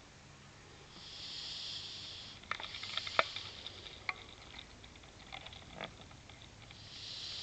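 A sleeping boy snoring lightly, breathing noisily through the nose: a long hissing breath about a second in and another near the end, with a string of small sharp clicks in between.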